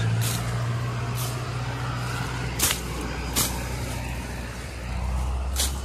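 Hand sickle swishing through thick, overgrown weed stems, about five short sharp cuts, over a steady low engine hum.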